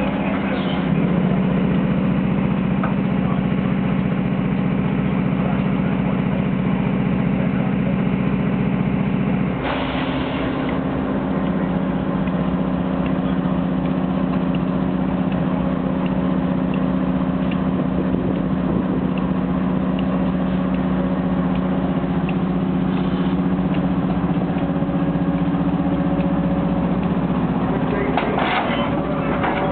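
Locomotive running steadily at close range: a loud low hum made of several held tones. About ten seconds in, a short burst of noise comes and the hum's pitch changes.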